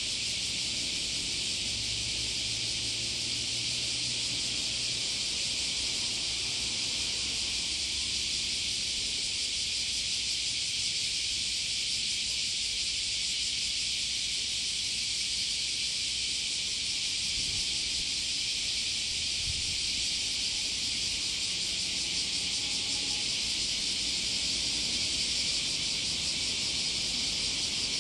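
A steady, even, high-pitched hiss with no breaks or changes in level.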